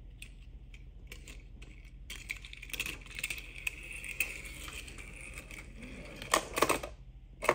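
Small toy police car's wheels rolling and rattling as it is pushed by hand over a tiled floor and up a plastic track, with a few louder plastic clicks and knocks near the end.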